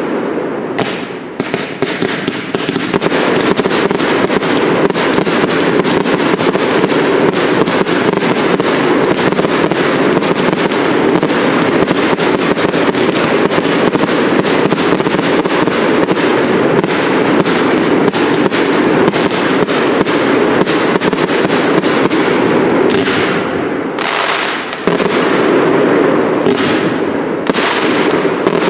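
Fireworks display of cakes (multi-shot firework batteries) firing rapid, near-continuous volleys of launches and shell bursts. There are short lulls about a second in and again around 24 s.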